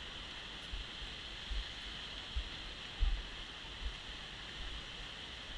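Steady rushing roar of Seljalandsfoss waterfall, with irregular low thumps on the microphone.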